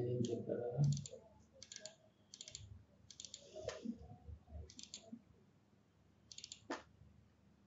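Computer mouse and keyboard clicks in small scattered clusters while working in 3D modelling software, with a brief low murmur in the first second.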